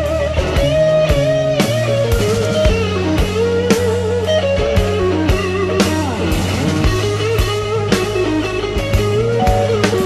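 Background rock music: a wavering electric guitar lead over a bass line and a regular drum beat.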